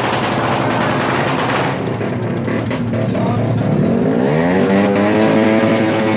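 Modified motor scooter engine being revved hard: a rattling, crackly run that about four seconds in rises in pitch and holds at high revs.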